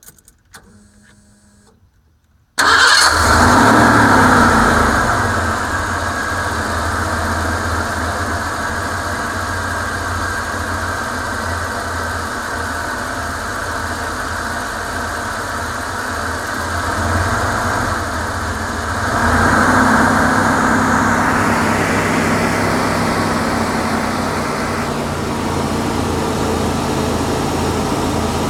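Van engine heard from inside the closed cab, cranking and starting a couple of seconds in, then running at idle; about two-thirds of the way through the engine note steps up and gets louder. The owner suspects a misfire in its running.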